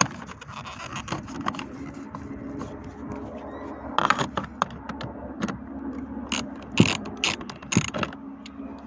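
Socket ratchet clicking as it backs out a door-handle mounting screw, with louder sharp knocks about four seconds in and a cluster of them between six and eight seconds.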